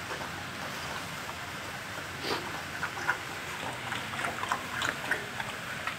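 Two dogs, a pit bull and a Siberian husky, eating and lapping from one stainless steel bowl: short, irregular wet clicks and smacks, more of them from about two seconds in.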